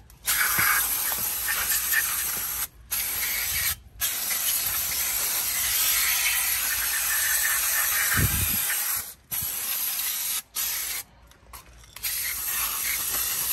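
Aerosol brake cleaner spraying in long hissing bursts, with short breaks about three and four seconds in, then shorter, broken bursts after about nine seconds.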